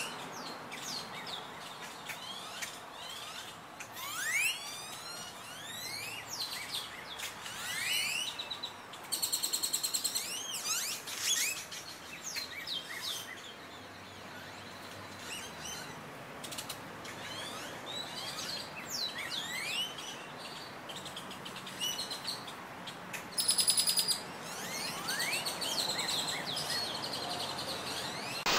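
Birds chirping and calling, mostly short upward-sweeping notes, with a rapid trill about nine seconds in and another about twenty-three seconds in.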